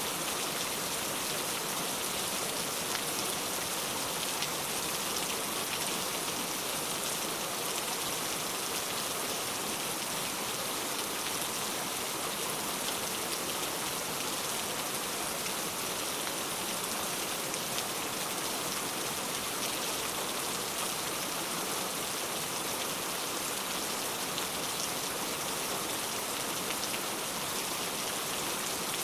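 Heavy rain falling steadily, an even hiss of many drops with faint scattered patters of single drops.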